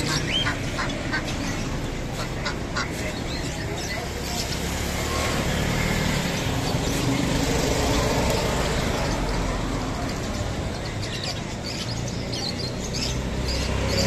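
Many caged birds calling and chirping, with short sharp calls busiest at the start and again near the end, over a steady background noise.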